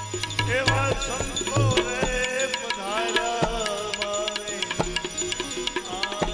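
Bhajan music: tabla strokes under a melody line that glides up and down.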